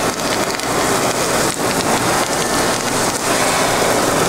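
Sliced onions sizzling on a hot flat-top griddle: a steady, dense hiss.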